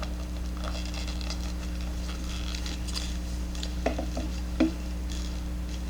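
Steady low electrical hum with a few faint light clicks and taps, including two small knocks about four seconds in.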